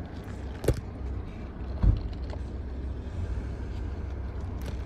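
Steady low hum of a car, with two short knocks, one under a second in and another about a second later.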